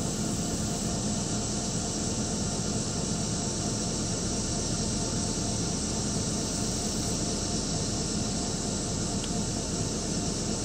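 Steady chorus of insects, a continuous high trilling, over a steady low rumble.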